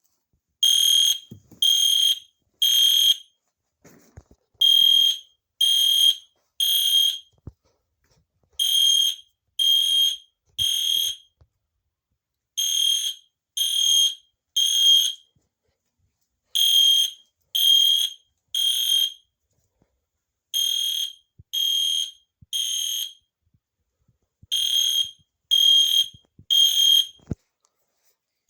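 Weatherproof EST Genesis fire alarm horn sounding the temporal-3 evacuation pattern: three short, shrill beeps about a second apart, then a pause of about a second and a half, repeating every four seconds.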